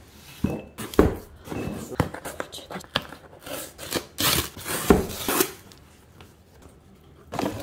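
A taped cardboard shipping box being opened by hand: packing tape tearing, cardboard rustling and a few sharp knocks as the flaps are pulled open, going quieter after about five seconds.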